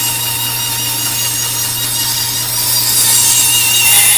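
Bandsaw running and cutting a curve in a wooden board: a steady motor hum under a high whine from the blade. The whine shifts in pitch and grows a little louder near the end.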